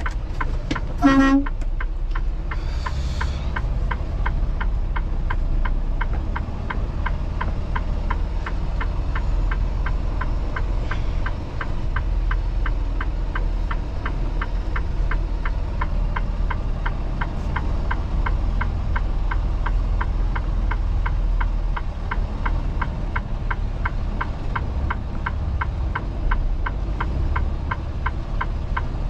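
Semi truck's diesel engine running with a steady low rumble heard from the cab, with a fast, regular ticking throughout. A short pitched toot sounds about a second in, and a brief hiss follows a moment later.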